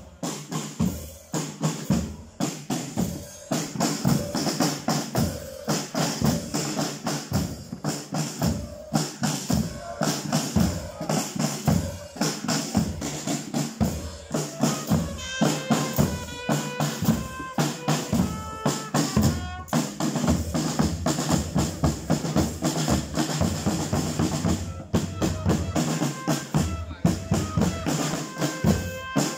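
Street carnival drum band of snare drums, bass drums and cymbals playing a steady marching rhythm. A short accordion melody sounds over the drums at times, around the middle and again near the end.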